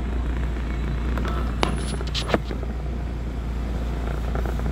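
Steady low rumble of a car's engine and road noise, heard from inside the cabin in slow traffic, with a few short clicks about two seconds in.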